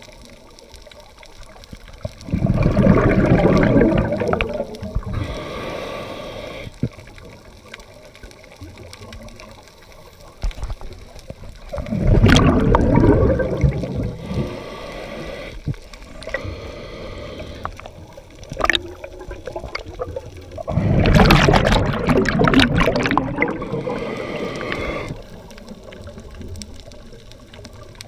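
Scuba diver's exhaled breath bubbling out of a regulator underwater, heard from the camera: three gurgling bursts of bubbles, each lasting two to four seconds, about nine seconds apart, with quieter underwater noise between.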